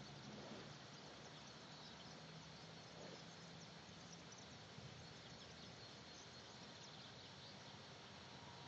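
Near silence: faint outdoor background hiss with a few faint high chirps and a faint low hum in the first few seconds.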